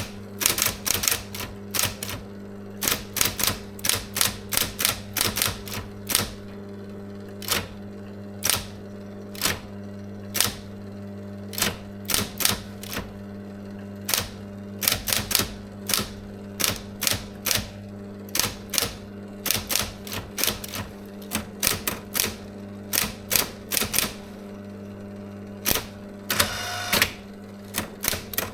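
SIGMA SM 7800 K electric typewriter being typed on: quick runs of key strikes with short pauses between them, over the steady hum of its running motor. Near the end a longer whirring sound breaks the run of strikes.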